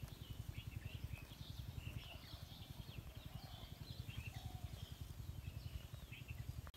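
Small birds chirping in short, scattered calls over a low, fast, even throbbing in the background.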